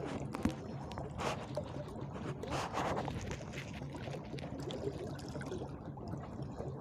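Seawater sloshing and trickling, over a steady low rumble, with a few small clicks and knocks in the first three seconds.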